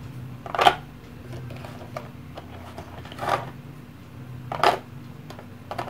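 Three short, soft handling noises, a little under a second in, about three seconds in and near five seconds, as plastic miniatures and their packaging are moved about by hand, over a faint steady hum.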